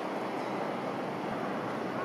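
Hino box truck driving away down the street: a steady rushing of engine and tyre noise.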